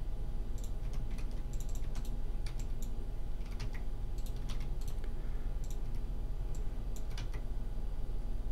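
Computer keyboard keys and mouse buttons clicking at irregular intervals as Blender shortcuts are pressed, over a steady low electrical hum.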